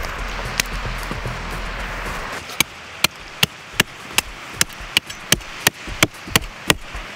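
A butcher's knife chopping into a whole lamb carcass: after about two seconds of steady rushing noise, sharp, evenly spaced strikes begin at about three a second.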